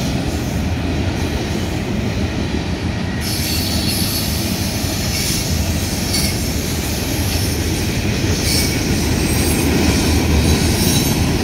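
Freight train cars rolling past with a steady rumble. About three seconds in, a high squealing hiss from the wheels on the rails joins and carries on, flaring briefly a few times.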